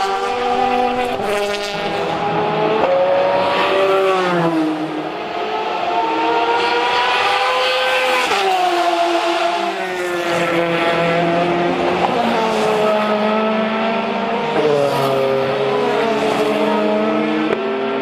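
Endurance race cars running at speed, several engines heard at once, their pitch climbing and dropping over and over as they shift gears, brake and accelerate.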